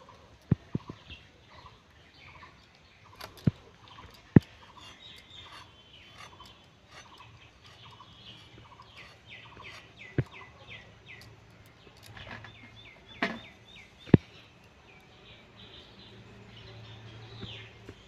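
Birds chirping in the background in quick runs of short falling notes, while a few sharp clicks and knocks sound every few seconds from the handwork at the blade.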